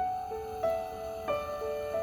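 Soft background music: a gentle instrumental melody of held notes, a new one every half second or so.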